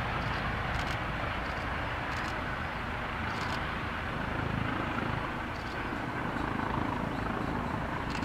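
Eurocopter EC135 twin-turbine helicopter hovering low and air-taxiing, its turbines and rotors running with a steady, even noise.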